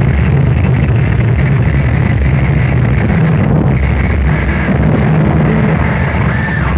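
Harsh noise music: a loud, dense wall of distorted noise with a heavy low rumble, and a thin wavering whistle rising out of it near the end.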